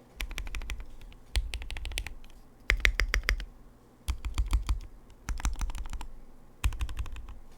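Fast typing on a Tofu60 60% mechanical keyboard with foam dampening and Night Sakura clone keycaps, in about six quick runs of keystrokes with short pauses between them.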